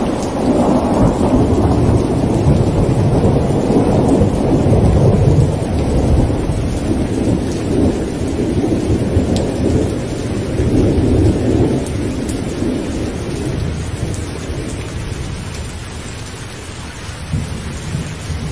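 A loud, deep rumbling noise, thunder-like, strongest in the first half and slowly dying away over the last several seconds.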